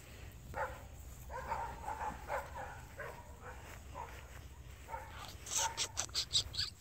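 Golden Retriever puppy barking in short high yips, with a quicker, louder run of sharp yips near the end.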